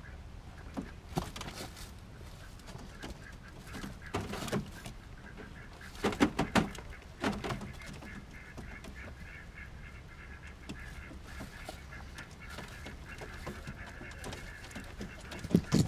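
Pigeons moving about in a loft: a few short bursts of clatter and bird sounds, the loudest about six seconds in and again near the end.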